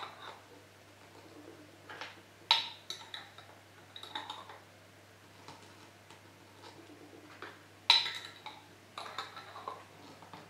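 Metal twist-off lids being set on glass jars and screwed shut by hand: scattered clinks and light scraping of metal on glass, the two loudest clinks about two and a half and eight seconds in.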